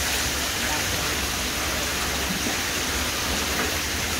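Steady splashing of water pouring from a hose into a plastic basin crowded with koi.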